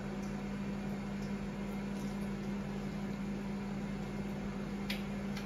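Ninja countertop multi-cooker running with a steady hum and fan noise. A few faint clicks sound near the end.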